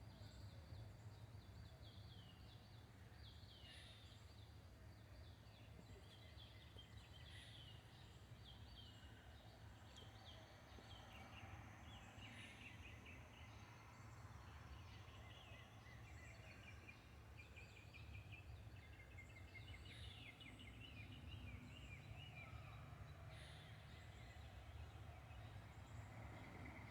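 Faint calls of several small birds: short chirps, down-slurred notes and quick trills, scattered throughout over a low steady rumble.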